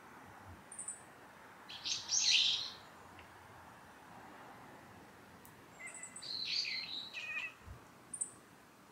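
Wild birds calling: two harsh, scratchy calls, one about two seconds in and a longer one from about six to seven and a half seconds, with a few short, very high chirps between them.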